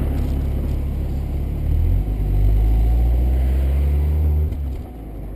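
Volkswagen Fox 1.0 four-cylinder engine and exhaust running with a deep, steady note. The note shifts about two seconds in and drops off sharply near the end as the engine comes off the throttle.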